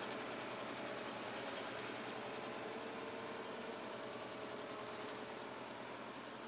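Tractor engine running steadily, with a single sharp click just at the start.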